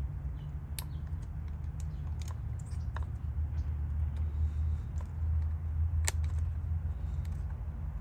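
Scattered sharp little clicks of female spade connectors being pushed onto the metal terminals of a plastic rocker switch and the switch being handled, the clearest about six seconds in, over a steady low rumble.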